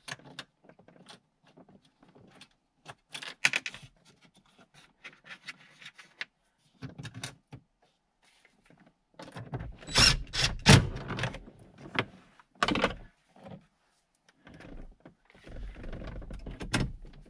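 Plastic dash trim of a 2010 Honda Ridgeline being handled and pressed into place around the stereo: scattered clicks, rustles and knocks, the loudest about ten seconds in and again near thirteen seconds. Near the end a cordless screwdriver runs briefly, driving the dash screws back in.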